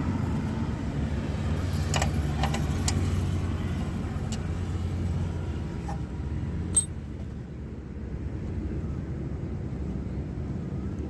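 Metal tool clinks as a spanner works the motorcycle's rear chain adjuster: a few light taps and one sharper clank about seven seconds in, over a steady low background rumble of traffic.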